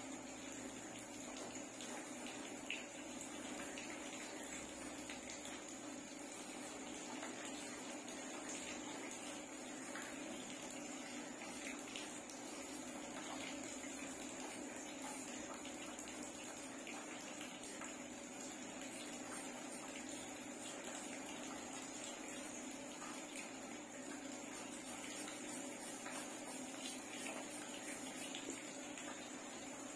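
Steady background hiss with a faint hum, and light scratching of a charcoal pencil on paper.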